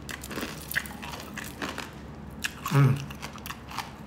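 Crisp pork back-fat chicharon crunching as it is chewed close to the microphone: a run of sharp, irregular crackles. A brief voiced sound comes about three seconds in.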